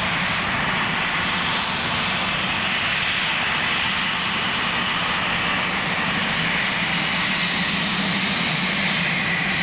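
Aircraft engine running steadily, a constant drone that neither rises nor falls.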